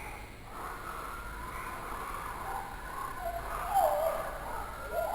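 Bird calls used for luring small birds: wavering, gliding whistled notes that grow louder near the end.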